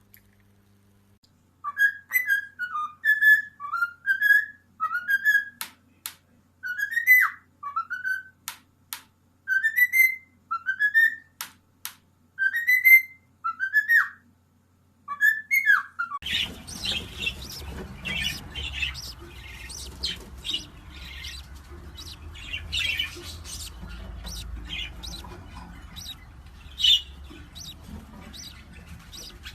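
Pet parrot whistling a short curved phrase over and over, with sharp clicks between phrases. About halfway through, this gives way to rapid short chirps and squawks from a parrot over steady background noise.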